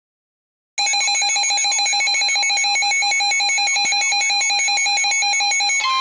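Emergency alert tones for a flash flood warning. A loud electronic alarm starts abruptly after a moment of silence and pulses rapidly, about ten times a second, over steady tones. Shortly before the end it switches to a single steady alarm tone, the kind NOAA Weather Radio sends to open a warning.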